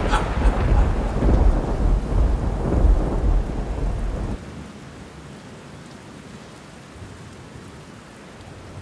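Thunder-and-rain sound effect: a loud, low rumble of thunder over rain that cuts off abruptly about four seconds in, leaving a much quieter hiss.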